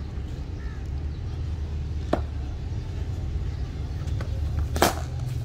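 Two sharp knocks of a hard cricket ball about two and a half seconds apart, the second much louder with a short ring, over a low steady rumble.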